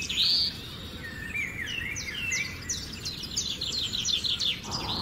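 Small birds chirping in quick, high runs of repeated chirps, over a faint steady background hiss. A soft rushing noise comes in near the end.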